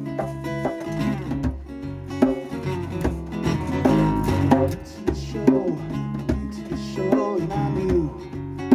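Live acoustic band playing: strummed acoustic guitar over a plucked bass-guitar line, with steady percussion hits.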